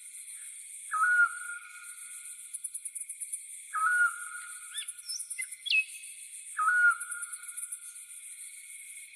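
Tropical forest ambience: a bird gives a short whistle that rises and then holds, three times about three seconds apart, over fainter bird chirps and a steady, pulsing cricket chorus.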